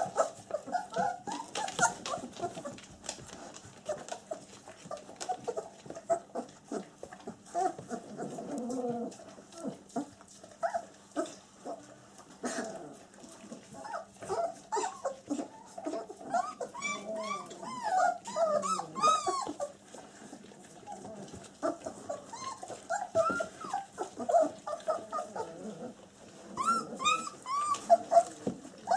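Twenty-day-old black German Shepherd puppies squeaking and whimpering while feeding at a bowl, with small clicks and smacks throughout. Strings of high, wavering squeals come about two-thirds of the way through and again near the end.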